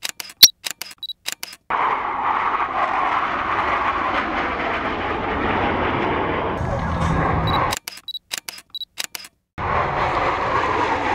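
A quick run of camera shutter clicks with silence between them, at the start and again about eight seconds in. Between the clicks, the steady roar of the Blue Angels' F/A-18 Hornet jets flying past overhead.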